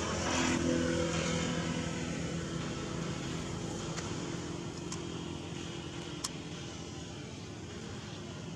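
Motor vehicle engine running steadily, with a low hum that is strongest in the first few seconds and then fades under a steady background noise. A few faint clicks come in the middle.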